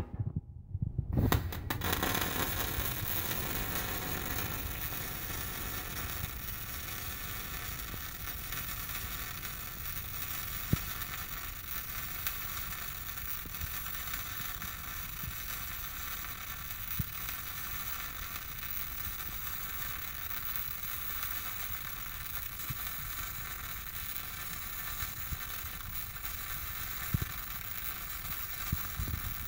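MIG welding arc struck about a second in, then burning with a steady hiss as a bead is laid along a steel plate, with a few sharp pops.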